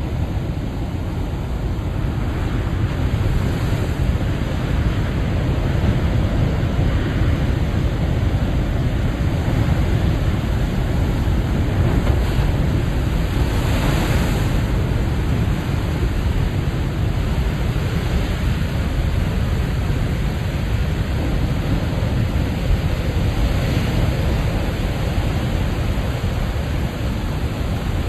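Big ocean waves breaking and washing ashore in a steady rush, with one wave surging in louder about halfway through. A low rumble of wind buffets the microphone.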